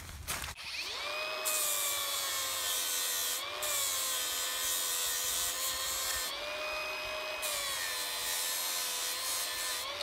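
Handheld electric grinder spinning up and grinding the trailer tongue's steel bare, to give the jack's ground wire a clean metal contact. Its motor whine sags in pitch under three stretches of grinding hiss and rises briefly in two short lifts off the metal, then winds down at the end.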